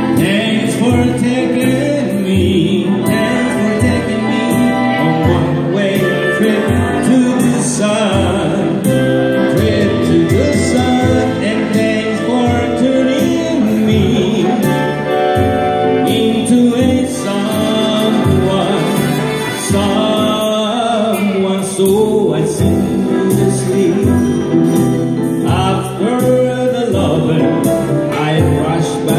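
A man singing a slow ballad into a microphone, amplified through a PA, with electronic keyboard accompaniment.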